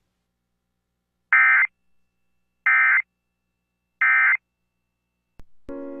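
Emergency Alert System end-of-message code: three short, identical bursts of digital data tones, about a second and a half apart, marking the close of an EAS test broadcast. Radio music starts just before the end.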